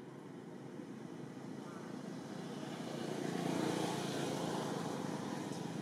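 Passing vehicle traffic: a steady rushing noise that swells louder about three to four seconds in, then eases off a little.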